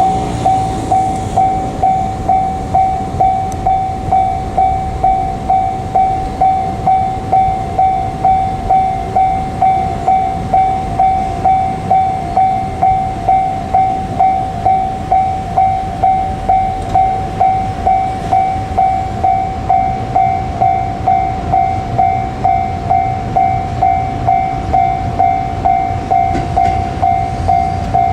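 Japanese railway level-crossing warning bell, an electronic ding repeating a little under twice a second, each stroke sharp and then fading. It signals that a train is approaching the crossing. A low rumble grows beneath it near the end.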